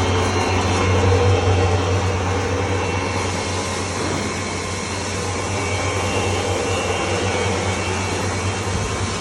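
Corn grinding pulveriser running steadily: a constant low hum under a broad rushing, whirring noise.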